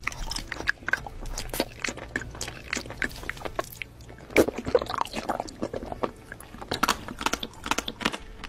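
Close-up eating sounds: irregular crunchy bites and chewing, with a louder crunch about halfway through.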